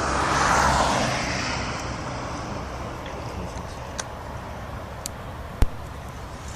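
A passing vehicle: a rushing noise over a low rumble that swells about half a second in, then slowly fades away. There is a single sharp click near the end.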